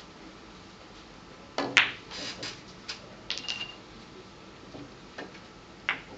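Billiard balls on a keglebillard table clicking and knocking in a shot: one sharp, loud click about one and a half seconds in, then a scatter of lighter clicks and knocks, one with a brief high ring.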